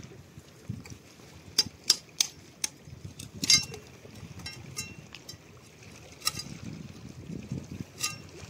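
A steel koyta (curved chopping blade) strikes rock oysters on a shore rock to break them loose: about ten sharp, irregular clacks. The loudest comes about three and a half seconds in and carries a short metallic ring.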